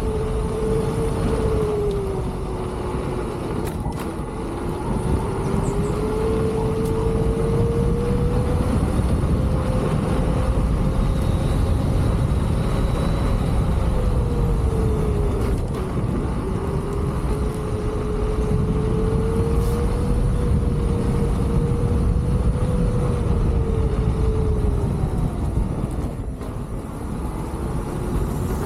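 Leaperkim Lynx electric unicycle's hub motor whining as it rides, the whine rising and falling in pitch with speed and dipping low three times as the wheel slows and picks up again. Under it runs a steady low rumble of wind and road noise.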